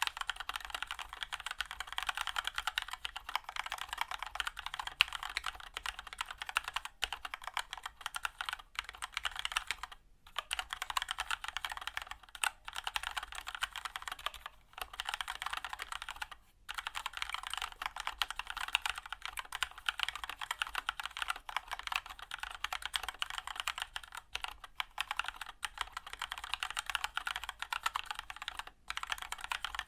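Continuous typing on a Keychron K2 aluminium mechanical keyboard with Keychron red linear switches: a fast, even stream of key clacks, broken by a few short pauses.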